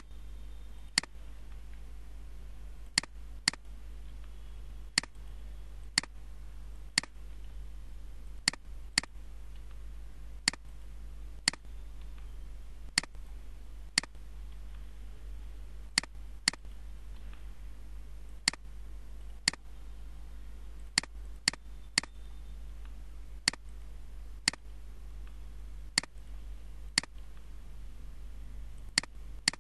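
Sharp single clicks of a computer mouse and keyboard, irregularly spaced about one every second or two, sometimes two in quick succession, over a steady low electrical hum.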